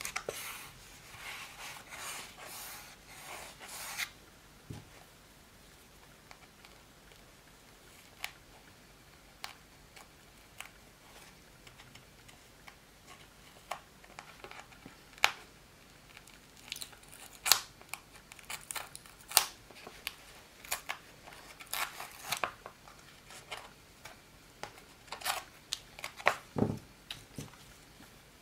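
Strip of double-sided tape being pressed down onto a cardboard board, a rustling for the first few seconds. Then scattered small clicks and taps of tape, paper and tools being handled, coming thicker in the second half, with one duller knock near the end.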